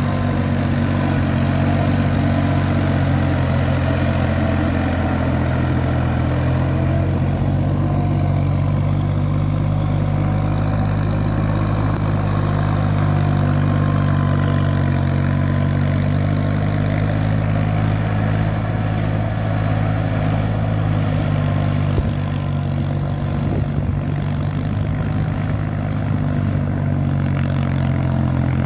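Farm tractor's diesel engine running steadily at a constant speed as it plows through a flooded paddy field, a low, even drone.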